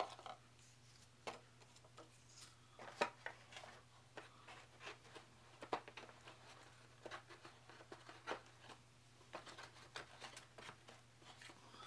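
Faint, scattered clicks and taps of small plastic figure stands and cardboard game parts being picked up and set aside, over a faint steady hum.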